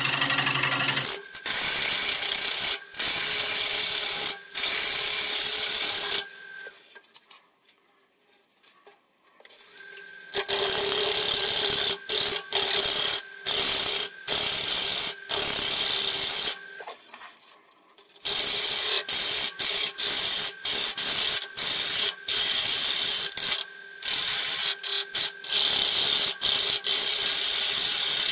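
A gouge cutting a spinning madrone and walnut bowl blank on a wood lathe: a loud hiss of shavings over the steady hum of the lathe, in long passes broken by brief lifts of the tool. The cutting stops for a few seconds about seven seconds in and again briefly near seventeen seconds.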